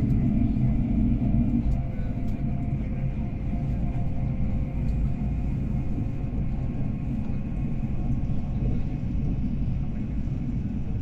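Steady low rumble of the Whoosh high-speed train running on its track, heard from inside the passenger cabin. It is a little louder for the first couple of seconds, then evens out.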